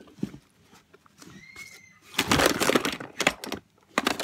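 Hands rummaging through a plastic storage box of small objects and packaging: rustling, with clicks and clatter as items are moved. It is quiet for the first second or so and becomes loud and busy about two seconds in.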